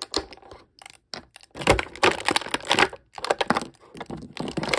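Hard plastic clicking, tapping and rattling as small plastic action figures and their plastic packaging tray are handled, in quick irregular clusters that are busiest in the middle.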